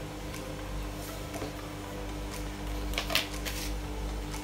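A few sharp clicks and light clatters of a metal spoon being handled against a plastic container on a kitchen counter, bunched about three seconds in, over a steady hum.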